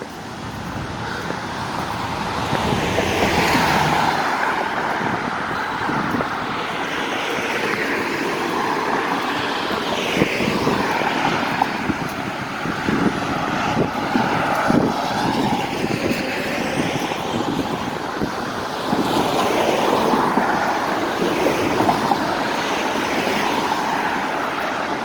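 Road traffic: cars passing, a steady rushing noise that swells as vehicles go by, most strongly a few seconds in and again near the end.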